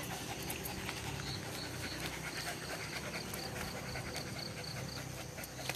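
A dog panting steadily.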